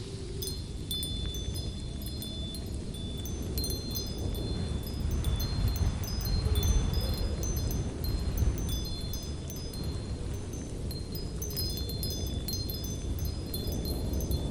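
Wind chimes tinkling in scattered high notes over a low, gusting wind that swells and eases.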